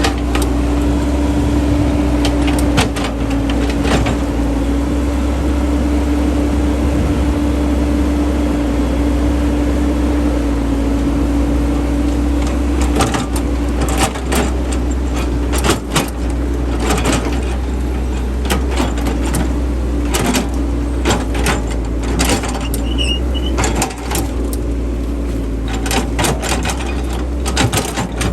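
Small electric motor of a radio-controlled model excavator or dump truck running with a steady whine, with frequent clicks and knocks from the model's moving parts, more of them in the second half.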